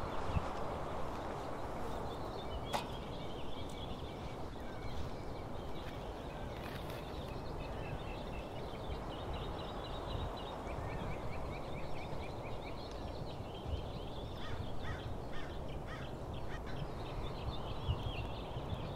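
Small birds chirping and calling over and over against a steady rushing background noise; the chirping grows busier in the second half.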